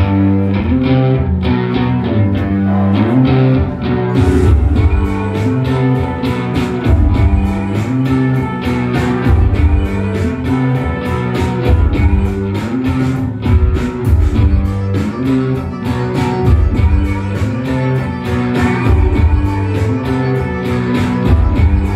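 Live indie rock band playing an instrumental passage: electric guitar and bass guitar over a steady drum beat, which gets brighter with cymbals about four seconds in.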